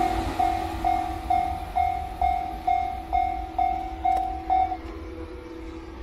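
Japanese level crossing's electronic warning bell ringing in steady strikes, a little over two a second, over the fading rumble of the departing train. The bell cuts off near the end as the crossing clears.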